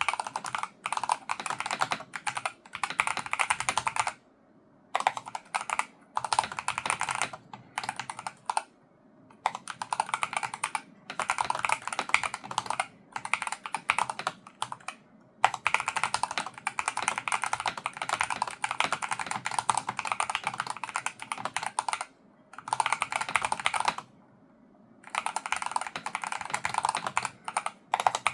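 Fast typing on a Logitech G Pro X TKL Rapid keyboard with Hall-effect magnetic linear switches: dense runs of key clacks, broken by a few short pauses of about half a second to a second.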